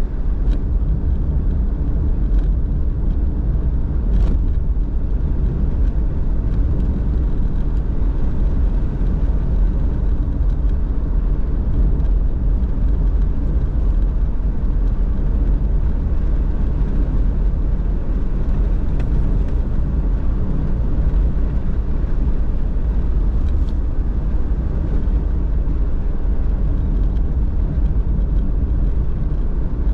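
Car driving at a steady speed: a constant low rumble of road and engine noise, with a few faint ticks.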